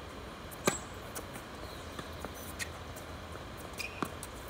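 Tennis serve: a racket strikes the ball with one sharp, loud pop well under a second in, followed by fainter, scattered pops and taps of ball and racket as the point is played.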